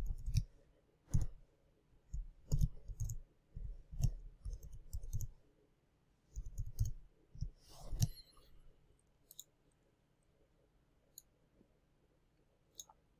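Computer keyboard keys tapped in short runs over the first eight seconds, then a few single mouse clicks.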